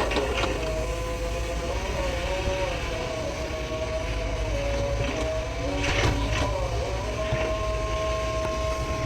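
Sany excavator running under load, with a low diesel rumble and a held tone that wavers up and down in pitch as it works. A few sharp metallic knocks at the start and about six seconds in.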